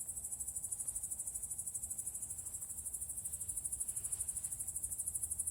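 Crickets chirping: a steady, high-pitched trill that pulses rapidly and evenly.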